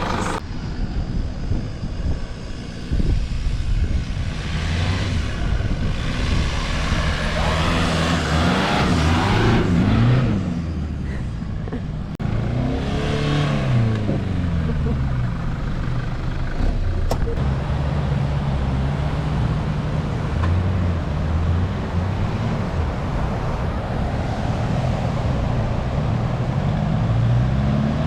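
Nissan Patrol four-wheel drive being driven, its engine revving up and falling back again and again, over a steady rush of driving noise. The sound breaks off abruptly a few times.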